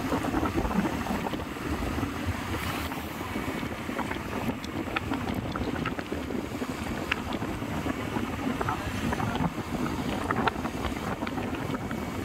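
Steady roadside traffic rumble with wind buffeting the microphone.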